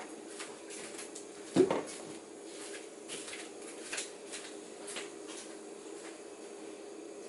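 Frying pan of oil heating on a gas stove, with a steady low hum and scattered light ticks. A single knock from the pan about a second and a half in is the loudest sound.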